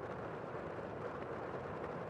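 Heavy rain heard from indoors, a steady muffled hiss.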